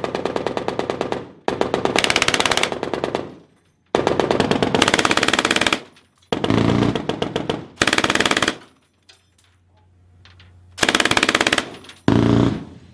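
Automatic gunfire: about seven bursts of rapid shots, each one to two seconds long, with short pauses between them.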